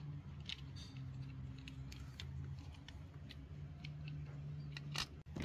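Light clicks and taps of plastic toy vehicles being handled, over a steady low hum, with a louder click near the end.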